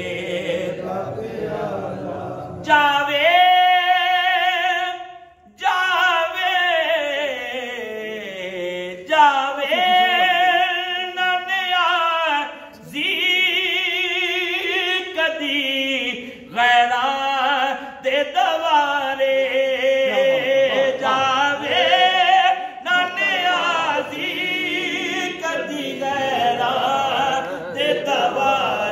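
A man singing a Punjabi naat with no instruments, in long drawn-out phrases whose held notes bend and slide down in pitch, with short breaks for breath between phrases.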